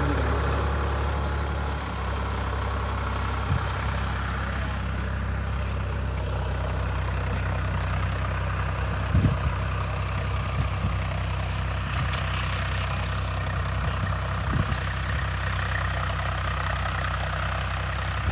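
8 hp single-cylinder diesel pump engine running steadily at idle, with a few brief knocks.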